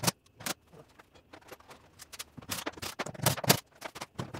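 Scattered clicks and knocks of hard plastic trim and parts being handled and pulled loose in a Tesla Model Y's front trunk, with a quick run of louder knocks about two and a half to three and a half seconds in.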